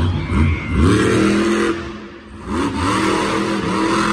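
Monster truck's engine revving hard twice, each time sweeping up in pitch and then holding high, with a short let-off between the two.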